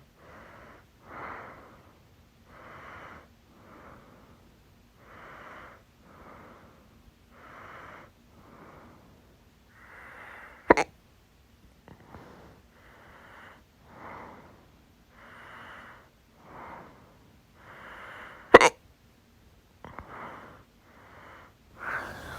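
A person with hiccups breathing audibly in and out in a steady rhythm, with two sudden, sharp, loud hiccups, one about halfway through and another about eight seconds later.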